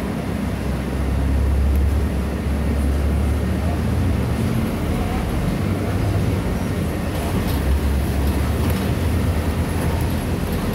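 Inside a moving road vehicle: a steady low drone of engine and road noise, with tyre noise on a wet road over it.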